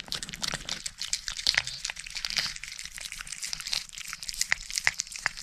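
A cat eating close to the microphone: a busy run of quick, irregular wet clicks and smacks from its licking and chewing.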